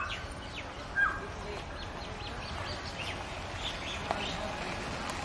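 Birds chirping in short, high, downward-sliding notes, with two louder sharp calls about a second apart near the start and a single click about four seconds in.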